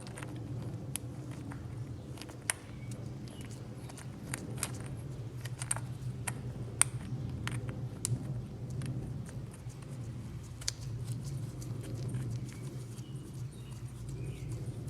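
Scattered light metallic clicks and taps of small parts and tools being handled as the carburetor cover is fitted and its bolts started, over a steady low hum.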